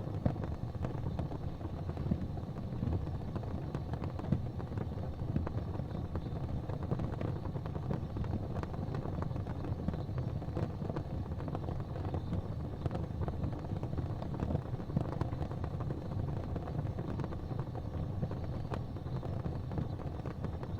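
Gas fireplace flames burning with a steady low rumble and faint scattered crackles.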